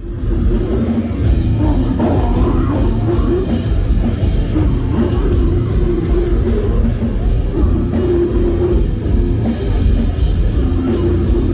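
Death metal band playing live: loud distorted electric guitars and bass over a full drum kit, a dense wall of sound without a break.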